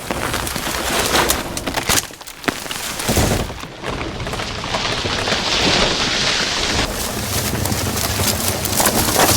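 Heavy torrential rain, with sharp cracks and deep booms as a huge rainforest tree gives way and crashes down.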